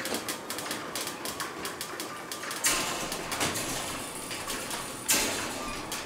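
Ryobi One+ garage door opener running on mains power, moving the door with a rapid clicking rattle and a faint whine, the "extra whining" of the opener when plugged in rather than on battery. Two louder clatters come about two and a half and five seconds in.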